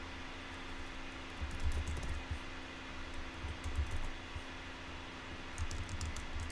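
Computer keyboard typing in three short bursts of quick keystrokes, over a steady low hum.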